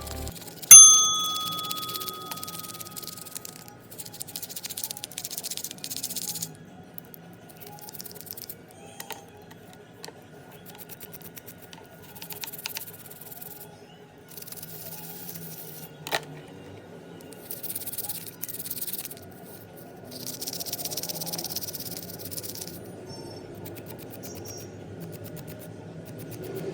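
A single bright metallic ding about a second in, ringing out for a few seconds, then on-and-off hissing and a few sharp clicks from small metal parts being handled.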